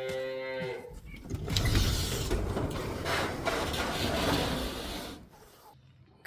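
A miniature cow moos once, a steady-pitched call ending about a second in. It is followed by about four seconds of loud, rough rustling noise.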